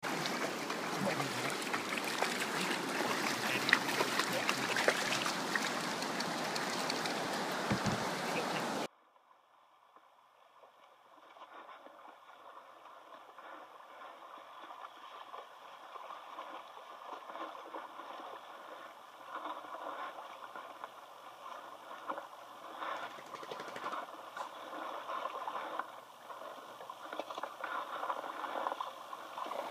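Loud, steady rushing of river water for about nine seconds, then a sudden cut to quieter, muffled water sounds of a kayak moving downstream, with occasional paddle splashes.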